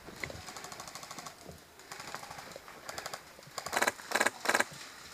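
Airsoft rifle fired on full auto in bursts: rapid, evenly spaced clicking shots, with three louder short bursts about three and a half seconds in.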